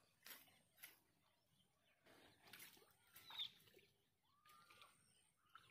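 Near silence, with a few faint brief rustles and taps and a couple of faint bird chirps.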